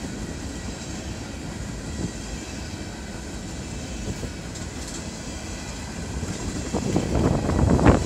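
Empty coal hopper cars of a long freight train rolling past on jointed rail, a steady rumble of steel wheels. It grows louder about two-thirds of the way in, with clacking wheel knocks near the end.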